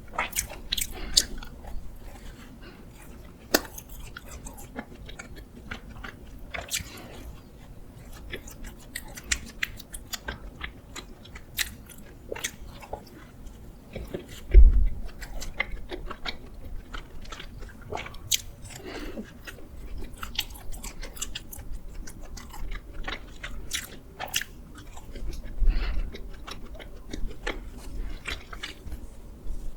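Close-miked biting and chewing of doughnuts: many short, irregular wet clicks and crackles. A single low thud about halfway through is the loudest sound.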